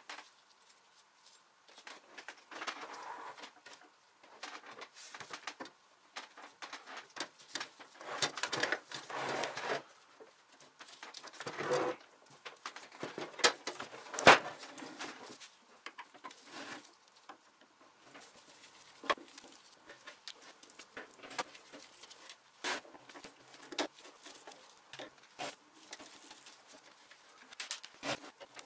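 Clinks, scrapes and rattles of an electric grill's wire grate and sheet-metal casing being handled and taken apart by hand, with a screwdriver working screws in the base. Irregular, with bursts of scraping and one sharp metal click about halfway through.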